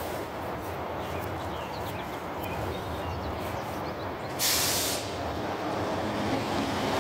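Heil Half Pack Odyssey front-loader garbage truck's diesel engine running steadily at a distance, with a sharp half-second air-brake hiss about four and a half seconds in.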